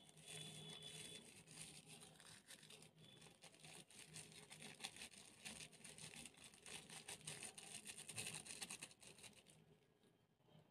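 Crunchy slime being worked by hand: a quiet, dense crackling and crinkling that fades out near the end.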